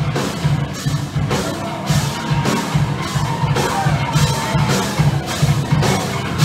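Live rock band playing loud: distorted electric guitars, bass and a drum kit driving a steady beat.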